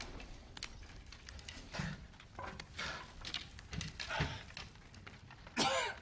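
A man gasping and breathing hard in short, strained breaths, with a brief cry falling in pitch near the end.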